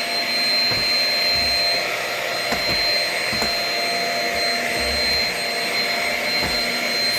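Shark Rocket vacuum running steadily with a high-pitched whine, with a few soft low knocks as it is pushed over the floor.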